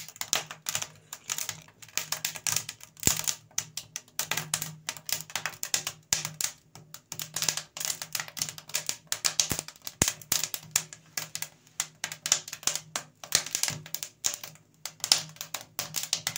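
Split wood burning in a brick forge's open firebox, crackling and popping irregularly, over a faint low hum.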